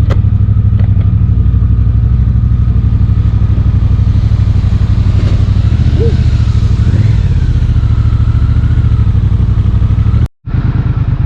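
Triumph Bobber's 1200 cc parallel-twin engine running steadily under way, with a fast even pulse. The sound cuts out for a moment near the end.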